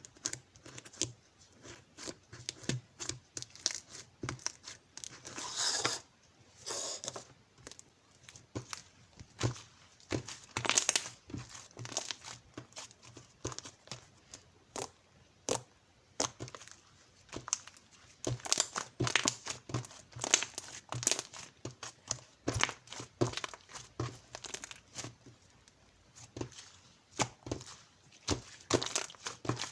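Close-up rustling and crinkling of paper or plastic being handled, with short tearing or peeling sounds and small taps, in irregular bursts.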